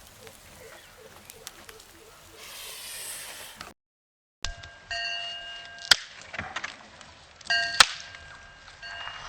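A short hiss, then a moment of dead silence at an edit, followed by bell-like metallic dings: a few ringing tones each lasting under a second, with two sharp clicks.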